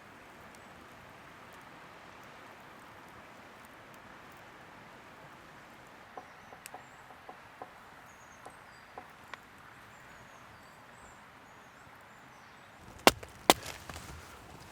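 Wood being chopped: two sharp, loud strikes about half a second apart near the end, with smaller knocks after, over a steady outdoor hiss with a few faint chirps and light clicks.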